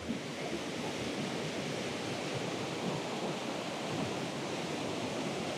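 Small waterfall and mountain stream running over rocks: a steady, even rush of falling and flowing water.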